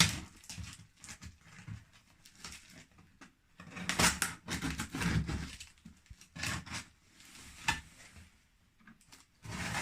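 Heavily wrapped parcel packaging being cut and torn open by hand: rustling, crinkling and scraping in irregular bursts, loudest about four seconds in.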